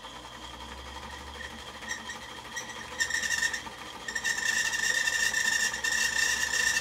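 Kenmore Ultra Stitch 10 sewing machine stitching through folded fabric, running slowly at first, then speeding up about three seconds in, easing off briefly and running fast again. It is sewing a test seam with the thread tension turned up from 3 to 4.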